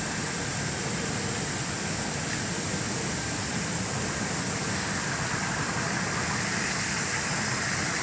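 Seaweed washing machine running: water churning and bubbling in its stainless-steel tank over a steady machine hum, growing a little louder near the end.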